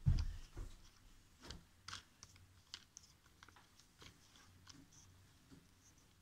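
Handling noise from a phone on a tripod being adjusted: a loud bump at the start, then scattered light clicks and rubs from the mount that thin out toward the end.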